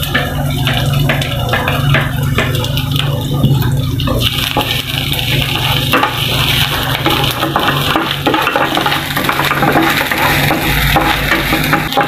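Sliced onion and garlic sizzling in hot oil in a frying pan, stirred with a wooden spatula. The sizzle thickens about four seconds in. A steady low hum runs underneath.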